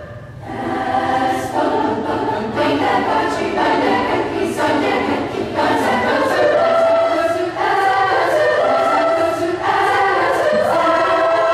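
Children's choir singing together. After a brief breath at the start it sings short phrases that break off about once a second, then holds a long chord from about halfway through.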